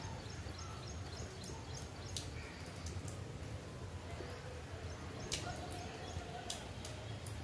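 Outdoor ambience during light monsoon rain: a steady hiss with birds chirping now and then and a few sharp drip-like ticks.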